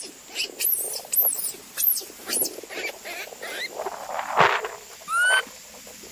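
High-pitched animal squeaks: a run of short, very high chirps about two a second, a louder scratchy burst about four seconds in, then a rising squeal a little after five seconds.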